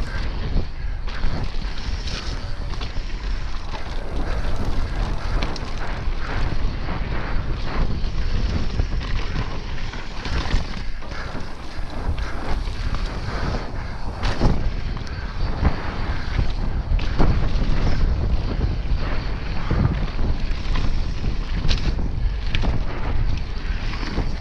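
Wind buffeting the camera microphone as a Yeti SB150 mountain bike descends a dry dirt trail at speed. Under it, the tyres run on loose dirt, with frequent clatters and knocks from the bike over bumps.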